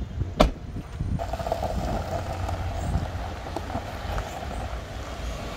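A Mercedes-Benz GL-Class SUV's driver door shuts with a single sharp thud. About a second later a steady hum starts and keeps going, the engine running, over low wind rumble on the microphone.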